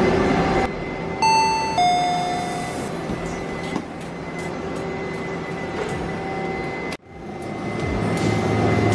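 A two-note descending chime, like a doorbell ding-dong, about a second in, over the steady hum of a running machine. Near the end the hum cuts out abruptly and a rushing noise swells up.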